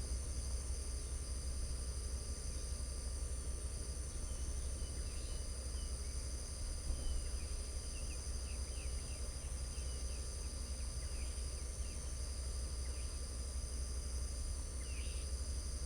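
Steady high-pitched insect chorus, with short bird chirps scattered through the middle and again near the end, over a steady low rumble.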